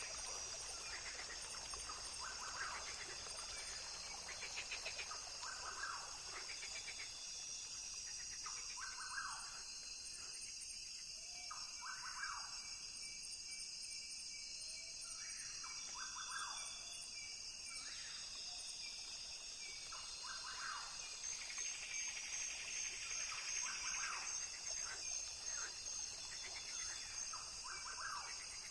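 Rainforest ambience: a steady high-pitched insect chorus with trilling pulses, under short repeated bird calls that come and go.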